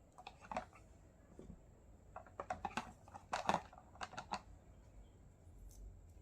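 Small plastic toy-kitchen pieces clicking and tapping as they are handled: quick clusters of light clicks, busiest in the middle, that stop about four and a half seconds in.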